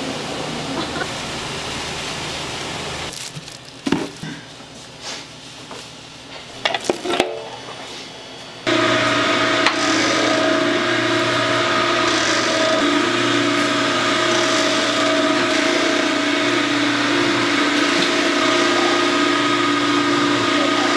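Fish cake production machinery running with a steady mechanical noise. A few seconds in it drops to a quieter stretch with a handful of sharp knocks and clatters. About nine seconds in, a louder steady machine hum with a constant whine comes in suddenly and runs on.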